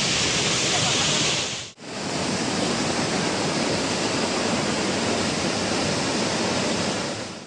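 Steady rush of falling water from the Seven Sisters Waterfalls. It cuts out for a moment a little under two seconds in, then resumes slightly duller.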